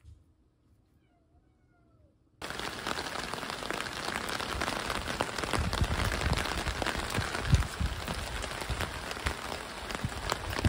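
Steady rain hiss outdoors that starts suddenly about two seconds in, with a few low thumps in the middle, and cuts off sharply at the end.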